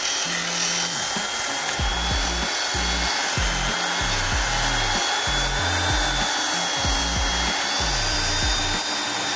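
Clarke electric detail sander running steadily, sanding the steel of a Beetle's front suspension beam clean, with a steady high whine. Background music with a bass line plays over it.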